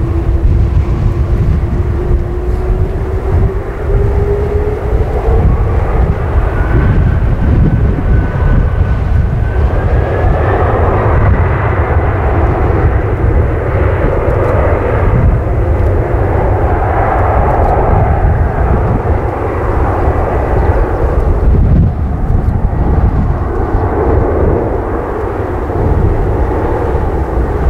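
Boeing 747-400M's four turbofan engines spooling up to takeoff thrust: a whine rising in pitch over the first ten seconds or so, then loud, steady jet noise over a deep rumble as the jumbo starts its takeoff roll.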